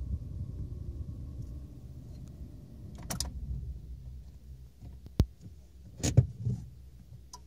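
Fiat Panda 1.2 engine idling with a low rumble, then switched off about three seconds in, with a short rattle as it stops and the rumble dying away. A sharp click follows just after five seconds, then a quick cluster of louder clicks and knocks about a second later.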